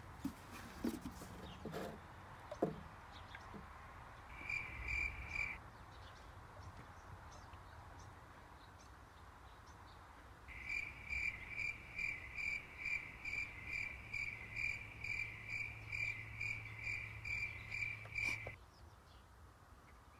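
Synthetic motor oil poured from a jug into a plastic funnel in the engine's filler neck, faint. Over it, a repeated high chirp about twice a second comes in a short spell about four seconds in and a longer one from about ten seconds until near the end.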